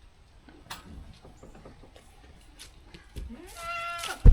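A goat bleats once near the end: one call that rises and then holds steady for about a second. Just after it comes a loud, dull thump.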